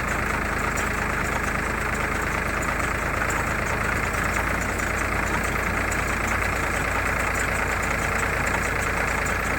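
Tractor engine running steadily, with no change in speed.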